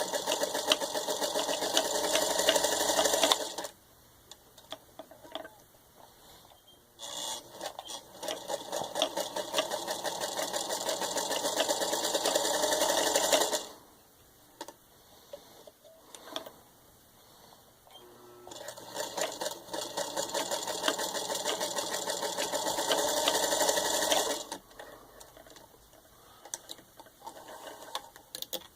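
Singer 221-1 Featherweight sewing machine running fast and stitching through four layers of denim in three runs of several seconds each, with pauses between them.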